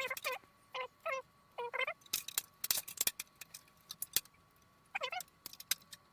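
Several short, pitched animal cries that bend up and down, with a run of sharp clicks and taps from hardware being handled in the middle.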